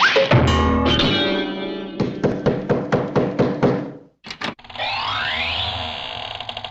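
A string of cartoon sound effects: a twangy, distorted guitar-like note, then a run of quick evenly spaced hits at about five a second, two short pops, and a rising sweep over a steady buzz.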